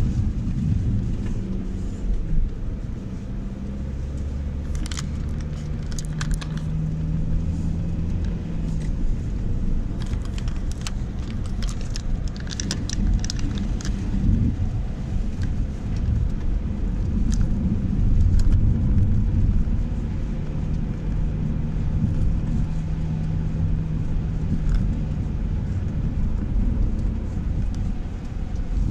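Car interior noise while driving on a wet road: a steady low rumble of tyres and engine, with a humming tone coming and going. Scattered light clicks and rattles come about five seconds in and again from about ten to fourteen seconds.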